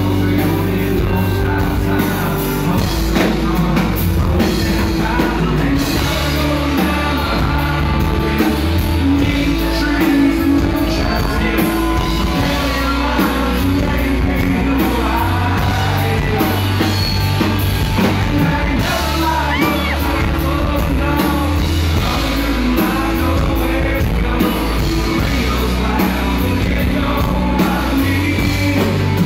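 Live band music, loud and steady, with a singer's voice over bass and guitar and a few yells.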